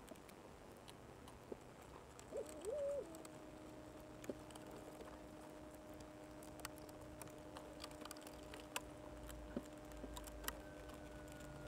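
Faint scattered clicks and taps of a screwdriver and small parts being worked inside a car's dashboard. Over them runs a faint steady tone that wavers briefly about two seconds in and then holds level.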